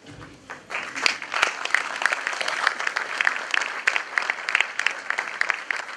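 Audience applauding: many hands clapping, starting about a second in and then going on steadily.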